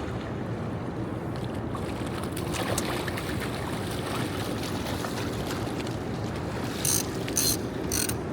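Steady low rumble and wind-and-water noise of a fishing boat on a fast river, with three short sharp noises near the end.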